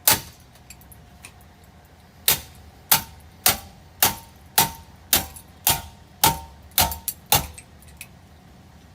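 Metallic clanging from a wrecked ceiling fan: one clang, then after a short pause about ten more in a steady rhythm, roughly two a second, each ringing briefly.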